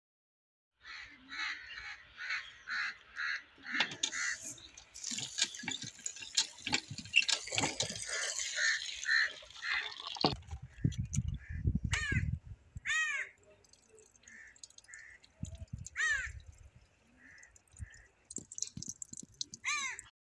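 Crows cawing in a quick, even series, then water pouring and splashing into a metal colander of sliced onions for several seconds, stopping suddenly. After that come a few bird calls that each sweep down in pitch.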